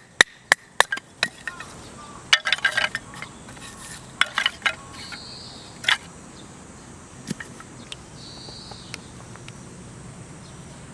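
Sharp, evenly spaced chopping knocks, about three a second, stop about a second in. After that come scattered clusters of light clinks and clatter, and twice a short, high insect buzz.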